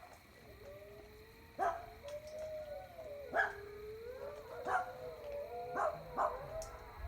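Dogs howling in long, wavering, overlapping howls, with about five sharp barks breaking in at irregular intervals.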